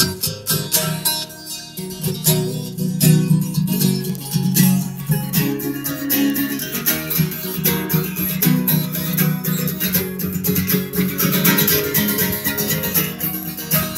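Strummed guitar playing an instrumental passage of a song, with no singing.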